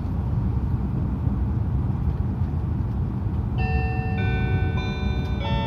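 Steady low rumble of the Narita Express limited express (E259 series) running on the line, heard from inside the car. About three and a half seconds in, the onboard chime starts a short melody of bell-like notes about half a second apart, the signal that an automated announcement is about to follow.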